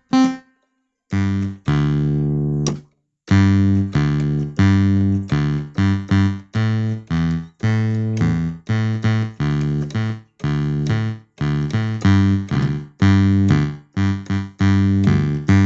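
Kurzweil KP150 digital keyboard played with its key split: a run of short, detached bass-voice notes, about two a second, each starting sharply and dying away quickly.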